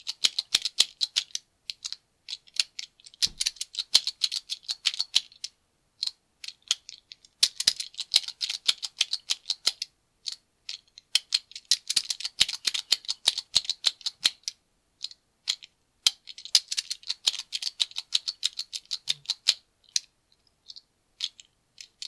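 Master Lock Speed Dial directional combination lock clicking and rattling as its dial is pushed through move after move, in quick runs of clicks a few seconds long with short pauses between. The discs are being reset and dragged again while the combination is decoded by feel.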